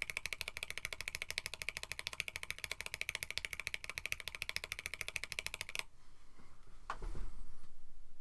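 Fast, steady typing on a mechanical keyboard (KBD67 Lite with FR4 plate and lubed switches), a quick run of key clacks that stops about six seconds in. About a second later there is a single low thump.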